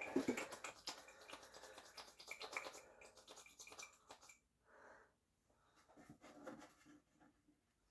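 Rapid scratchy rubbing and small clicks from RC truck shock parts being worked by hand during cleaning, lasting about four seconds, then only faint handling sounds.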